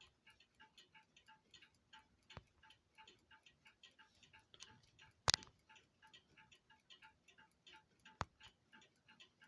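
A clock ticking steadily and faintly, about four ticks a second, with a sharp louder click about five seconds in and two softer clicks.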